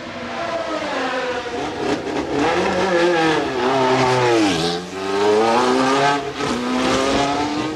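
1970s Formula One car engine revving hard on track. Its pitch climbs and falls through the gears, with a sharp drop about four and a half seconds in and another a little after six seconds, then a steady climb.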